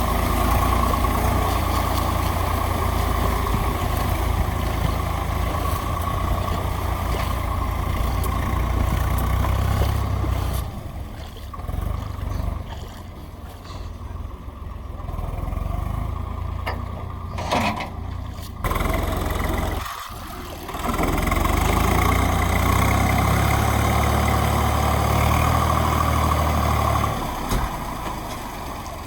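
Diesel engines of a backhoe loader and tractors running, loud and steady at first. The drone falls back about ten seconds in, rises briefly in pitch like a short rev, and comes up loud again for several seconds before easing off near the end.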